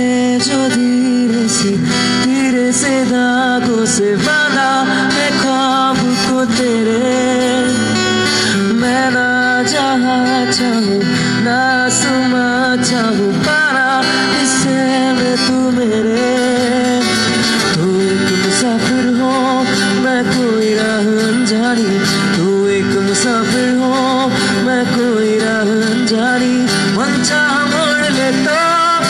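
Live acoustic music: a male singer singing into a microphone, accompanied by a strummed acoustic guitar.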